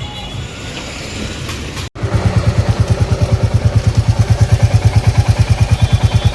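Motorcycle engine idling: a loud, even, low beat of about nine pulses a second. It comes in abruptly about two seconds in, after quieter workshop background.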